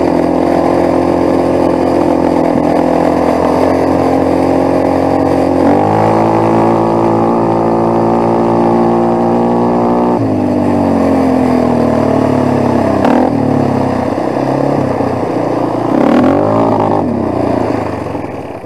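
Quad bike engine running while riding. The revs step up about six seconds in and hold, drop back a few seconds later, then rise and fall briefly twice. Near the end the engine fades out and dies, which the rider puts down to the spark plug cap coming loose again.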